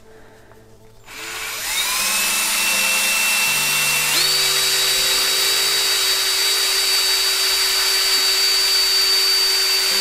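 Ryobi cordless drill spinning a plastic stirring wand inside a glass carboy of apple cider, stirring the cider. It starts about a second in with a rising whine as it spins up, then runs as a steady whir that steps up in pitch about four seconds in.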